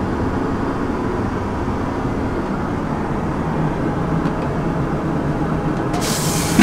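Steady drone of an airliner's cabin noise heard inside the lavatory. Near the end the vacuum toilet flush starts with a sudden loud hissing rush.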